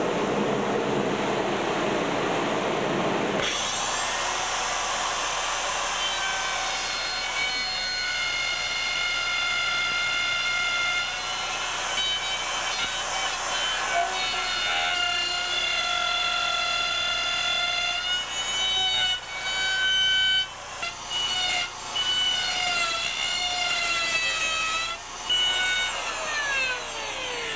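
Handheld router running with a high-pitched whine as it cuts out a surfboard's fin box through resin and fiberglass down to the foam. The pitch sags and wavers as the bit bites in, and near the end the whine falls away as the motor spins down. Before the whine starts there are a few seconds of steady rushing noise.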